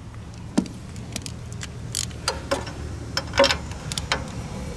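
Irregular metallic clicks and ticks of hand tools at a lawn tractor's V-twin engine: pliers pulling off a spark plug wire, then a socket wrench fitted onto the spark plug and worked to loosen it, over a low steady hum.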